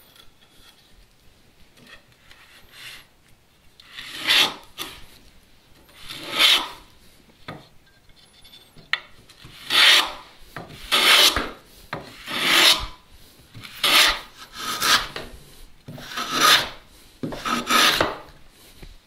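Hand plane taking shavings off a plywood strip to thin it: about nine rasping strokes, each about half a second long, beginning about four seconds in, the later ones coming roughly every second and a half.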